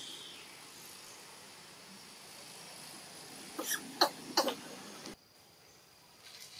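A steady high insect buzz, broken about three and a half seconds in by three short, harsh, cough-like sounds in quick succession. The background drops away abruptly about five seconds in.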